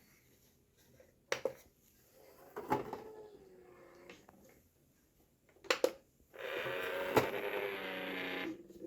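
SureFeed Microchip Pet Feeder's motorised lid: several sharp clicks and a short whine, then about two seconds of loud grinding whine near the end as the lid closes. This is the abnormal noise one of the feeders makes when closing its lid, a fault rather than normal running.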